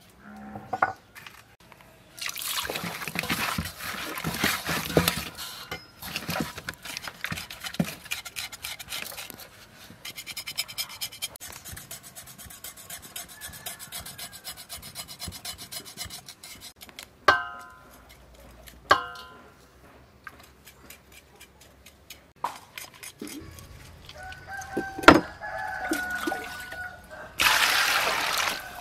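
Hands scrubbing a fish head with coarse salt in a steel bowl, a gritty rubbing and scraping sound that comes in spells during the first several seconds. Chickens call in the background, with two short sharp calls in the middle and more near the end. Near the end, water is poured over the fish head into the bowl to rinse it.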